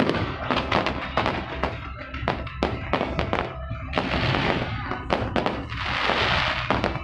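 Fireworks going off in quick succession: many sharp bangs, with two longer stretches of hissing crackle about four and six seconds in.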